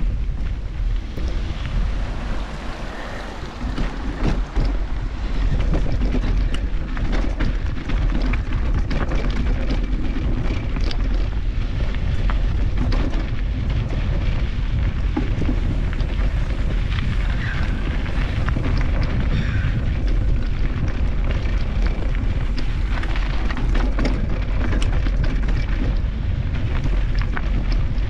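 Wind buffeting and rumbling on a handlebar-mounted GoPro Hero 8's microphone as a mountain bike descends a trail in the rain, with frequent sharp clicks and rattles from the bike over rough ground. The rumble dips briefly and then grows louder about five seconds in.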